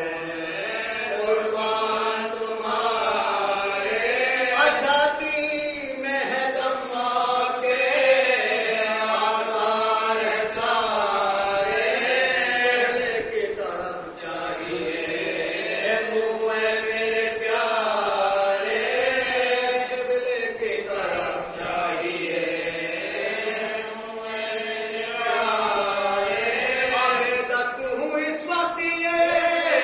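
A group of men chanting an Urdu marsiya, a mourning elegy, together in a slow, drawn-out melody with voices only and no instruments. The lines are long and held, with a brief dip in the middle.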